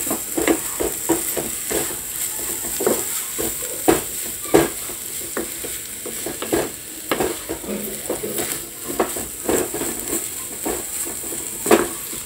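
A spatula stirring and scraping minced mutton (keema) around a non-stick frying pan in repeated, irregular strokes over a steady sizzle of the meat frying. The freshly added ground spices are being mixed in.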